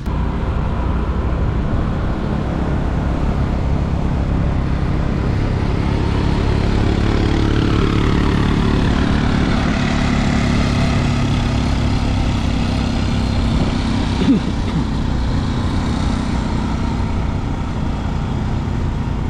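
Motorbike running as it is ridden uphill, a steady rumble with road and air noise, the engine note rising for a few seconds midway. A brief sharp knock about two-thirds of the way through.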